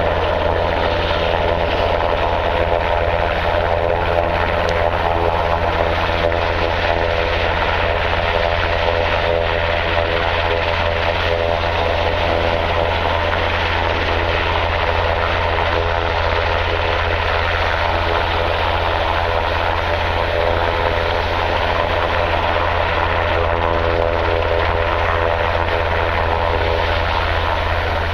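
Coast Guard search-and-rescue helicopter hovering, with a loud, steady, unbroken rotor and engine drone.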